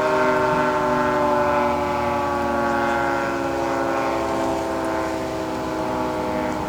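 Federal Signal 3T22 dual-tone rotating outdoor warning siren sounding its steady alert chord during a test, heard from inside a car. The pitch drifts slowly lower and the level swells and dips slightly as the head turns.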